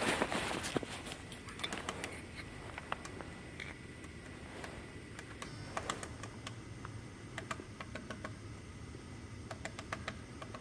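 A woodpecker pecking at wood: irregular sharp taps, with short runs of quick taps a little past halfway and again near the end.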